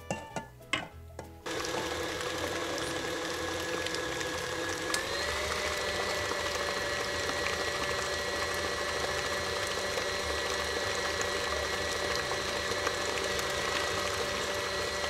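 KitchenAid Classic tilt-head stand mixer starting about a second and a half in and running steadily, its flat beater working a thick cream cheese and caramel mixture in a steel bowl. Its pitch steps up slightly a few seconds after it starts. A few short knocks come before it starts.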